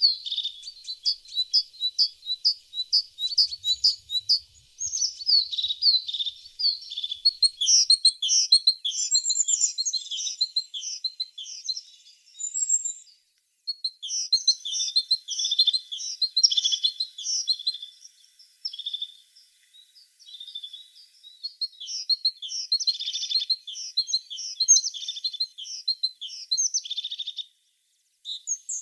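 Tit singing: fast runs of high, sharp chirps and trills, nearly continuous, breaking off briefly about halfway through and again near the end.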